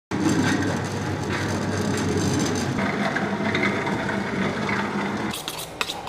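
A machine runs with a steady hum under a dense grinding rasp, then cuts off about five seconds in. A few sharp clicks or knocks follow.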